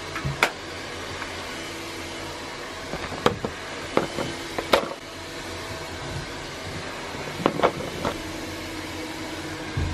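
A steady mechanical hum with a handful of sharp clicks and taps scattered through it, some in quick pairs.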